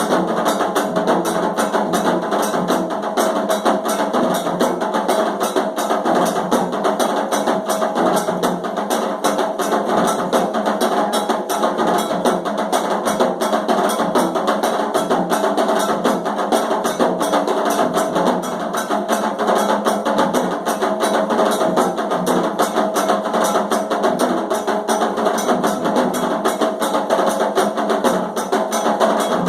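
Candomblé ritual drumming: hand drums and other percussion playing a fast, steady rhythm without a break.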